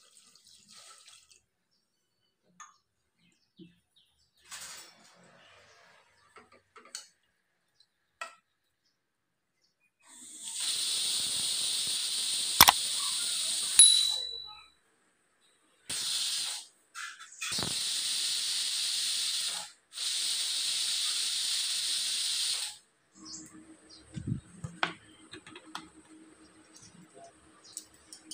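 Pressure cooker whistling: steam hisses loudly out from under the weight on the lid in four bursts, a long one of about four seconds and then three shorter ones with brief gaps. It is the sign that the cooker has come up to pressure.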